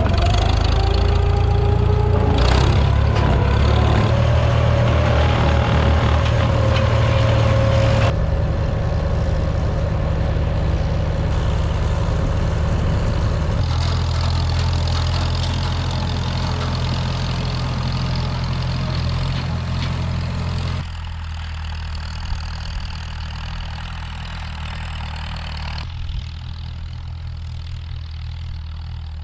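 Farm tractor engines running steadily, heard across several cut-together shots that change abruptly in loudness and tone.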